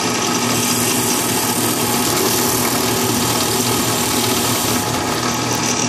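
Drill press running with a steady hum as a 4 mm bit is worked by hand into a 3D-printed plastic extruder part to widen a bolt hole.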